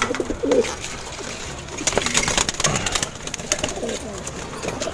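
Domestic pigeons cooing in a loft of wire-mesh cages, with a run of clatter and rustling from about two seconds in as a bird is caught by hand.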